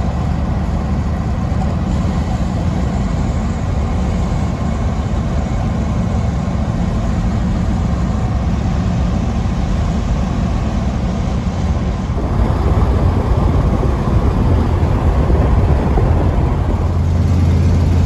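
Ford Bronco driving: a steady rumble of engine, tyre and wind noise. It gets louder about twelve seconds in, and a deep drone comes in near the end.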